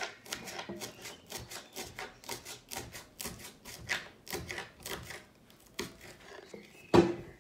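A knife finely chopping green chillies on a plate: rapid, uneven taps of the blade on the plate, about four or five a second, thinning out near the end, with one louder knock just before the end.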